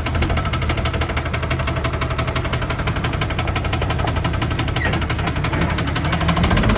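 Dodge pickup's 6.7 L Cummins inline-six turbo diesel running at idle with a rapid, even knock: a bottom end knock, which the owner takes to mean the engine needs replacing.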